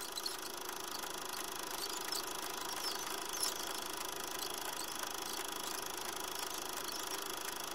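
A steady hiss with a faint even hum and scattered light clicks, unchanging throughout.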